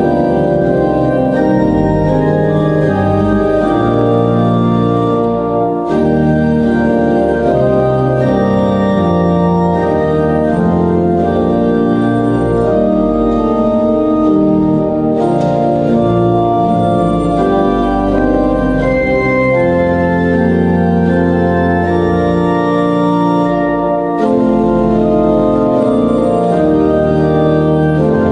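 Organ music: slow sustained chords that change every second or two, with short breaks between phrases about six, fifteen and twenty-four seconds in.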